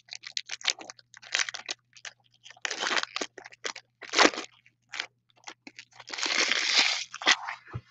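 Foil wrapper of a Panini Donruss Optic card pack crinkling and tearing as it is opened by hand, in irregular crackly bursts, with a longer stretch of crinkling about six seconds in.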